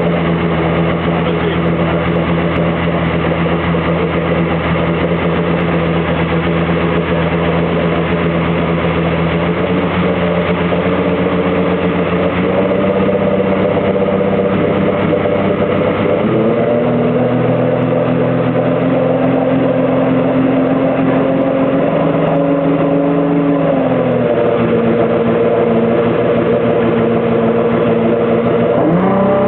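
Outboard engine running under load on a dynamometer during a power test. It holds steady speeds that step up in stages, a small rise a little before halfway and a bigger jump just past halfway. It drops back at about three quarters of the way through and revs up quickly at the very end.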